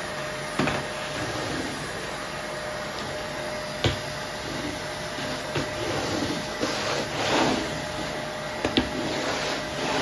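Canister vacuum cleaner running steadily with a constant whine, its floor brush being pushed back and forth over a wooden floor. A few sharp clicks break in, and the suction noise swells louder past the middle.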